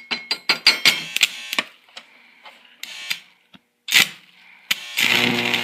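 Stick welding with a 6013 electrode turned down to 60 amps, which makes the arc hard to start. Sharp crackling clicks and sputters come as the rod is scratched and the arc catches and dies, then a few short bursts, and about five seconds in the arc holds with a steady crackling hiss.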